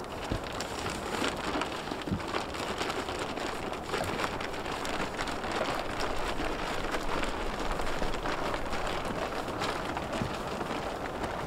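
Small wood campfire crackling: a dense, steady run of small pops and snaps over a constant hiss.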